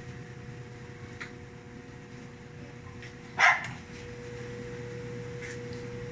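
The top-load washing machine's water inlet valve hums steadily while the machine is still switched off: the valve is being energised by shorted driver ICs on the control board. About three and a half seconds in, a dog barks once, louder than the hum.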